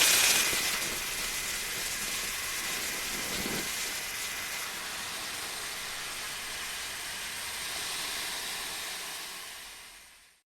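Mothra larva sound effect: a steady hiss that slowly dies away and fades out just before the end.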